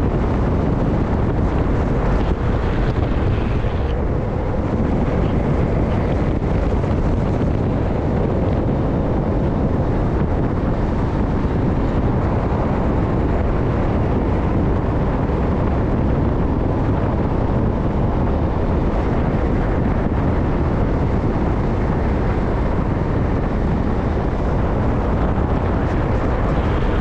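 Steady loud wind rush buffeting a rider-mounted camera's microphone as a downhill skateboarder descends at race speed, with a constant low road rumble underneath.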